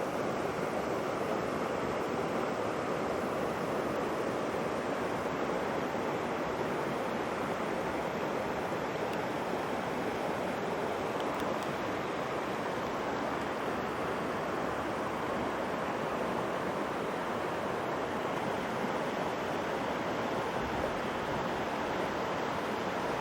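Steady rushing of a mountain stream's cascading water.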